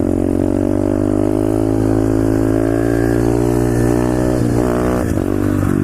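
Pit bike engine pulling hard under held throttle, its pitch climbing slowly, then dropping and wavering about four and a half seconds in as the throttle is eased.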